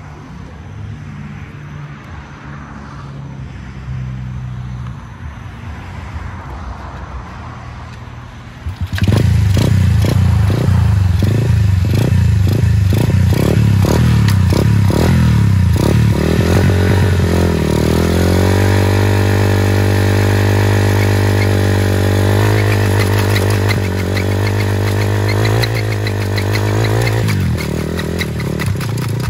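Small single-cylinder four-stroke engine of a 125 cc pit bike starting after a quieter stretch. About nine seconds in it fires with loud, uneven beats, then revs up and holds a high, steady rev, easing off briefly near the end.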